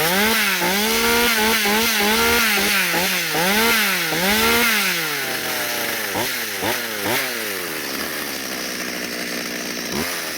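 Stihl 020T two-stroke chainsaw, freshly started from cold, revved up and down about seven times in quick succession. It then drops to a steady idle, with a few short throttle blips after about six seconds and another near the end.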